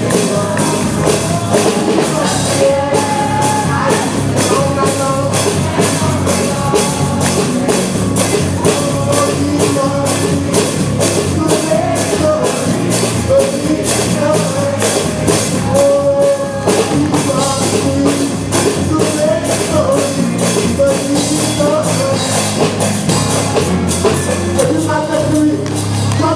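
Live gospel praise-and-worship music: a band with a drum kit keeps a steady beat under voices singing a melody.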